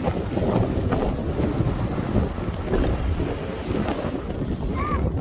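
Wind buffeting the microphone: an uneven, gusty rumble.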